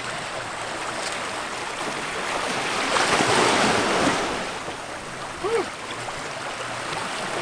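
Ocean waves washing onto the shore, one wave swelling loudest about halfway through.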